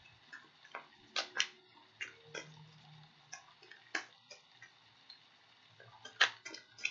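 Tarot cards being handled: about a dozen scattered, irregular sharp clicks and snaps.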